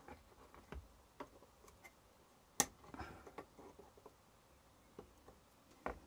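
Flush cutters snipping LED leads flush on the solder side of a circuit board: scattered small clicks, with one sharp snip about halfway through and another near the end.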